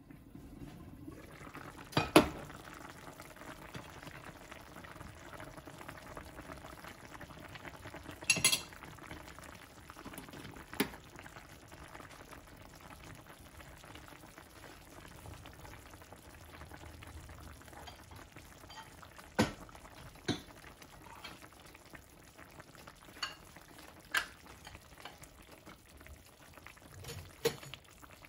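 Chicken tinola soup simmering in a pan, a faint steady bubbling hiss. A few short sharp knocks or clinks break through it, the loudest about two seconds and eight seconds in.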